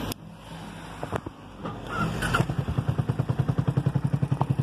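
Cruiser motorcycle engine being started: a couple of clicks, a brief crank, and the engine catches about two seconds in, then settles into a steady idle with an even pulsing beat.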